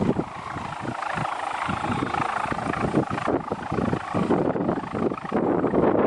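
Hummer on a flying pegon kite droning in the wind, a steady, pulsing whir that sounds like a helicopter.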